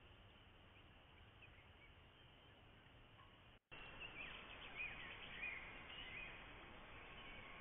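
Near silence with a faint steady hiss of outdoor ambience. About halfway through the sound drops out for a moment, then returns a little louder with a few faint bird chirps.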